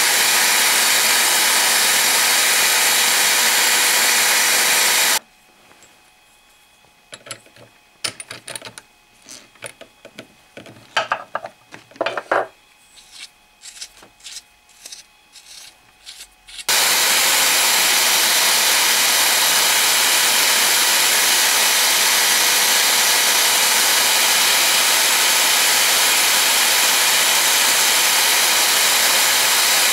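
Bench drill press running steadily while an abrasive strip is rubbed against its spinning spindle. About five seconds in the running breaks off abruptly, leaving clicks and knocks as a rod and disc are fitted to the spindle by hand. About eleven seconds later the running returns just as abruptly.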